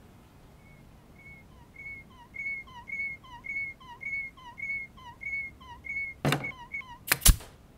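Cartoon sound effects for an animated walking clamp: a steady run of short squeaky chirps, about two a second, each with a lower falling blip, growing louder as it goes. A few sharp clicks follow near the end, the loudest a double snap.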